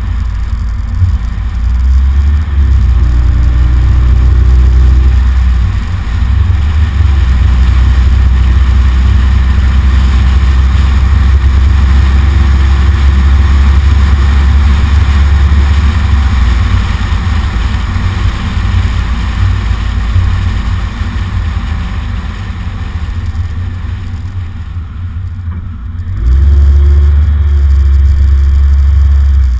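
Mazda MX-5's four-cylinder engine pulling the car along at a steady speed, heard together with wind and road rumble on a microphone mounted outside on the hood. The engine note holds steady for long stretches, eases off for several seconds past the middle, and picks up again near the end.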